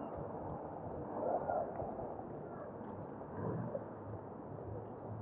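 Steady outdoor background noise with faint, short high chirps of small birds scattered through it.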